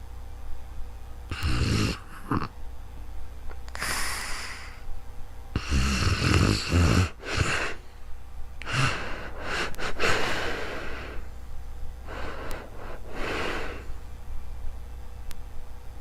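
Snoring in slow, repeated breaths: rattly snores alternating with breathy, hissing exhales, roughly every three to four seconds.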